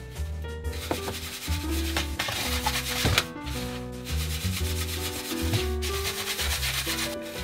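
Dry panko bread crumbs rustling and scraping in a stainless steel tray as shrimp are pressed into them and the tray is shaken, starting about a second in, over background music.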